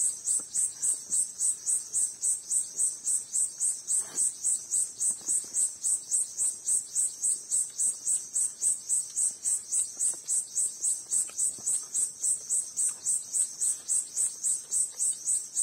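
Insect chirping steadily, a high-pitched pulse repeated about four times a second.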